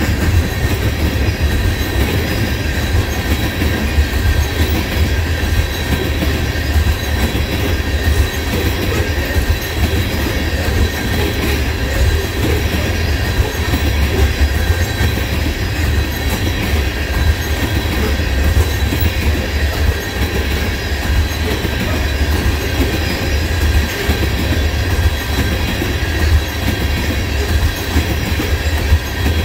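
Railroad tank cars of a freight oil train rolling past, their steel wheels on the rails making a steady heavy rumble with a thin high ringing tone above it.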